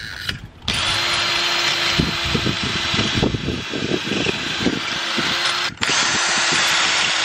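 Cordless drill boring a hole through stainless steel angle bead into a planter wall, for fixings with wall plugs. It runs steadily for about five seconds, stops for a moment, then starts again.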